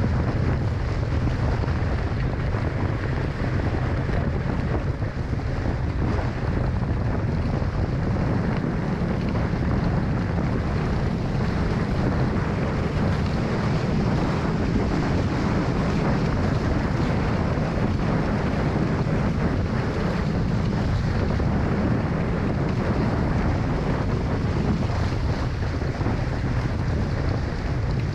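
Strong wind buffeting the microphone over the rush of water along a Hobie 16 catamaran's hulls under sail: a steady, loud, low rumble with no let-up.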